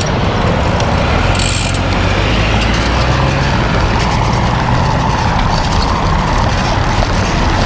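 Steady road noise of motor traffic running close by, with a low engine drone and wind on the microphone. A brief hiss comes about one and a half seconds in.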